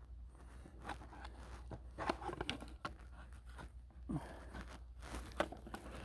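Scattered light clicks, scrapes and rattles of hands fitting the bar, chain and plastic side cover onto a cordless chainsaw, with a faint steady low hum underneath.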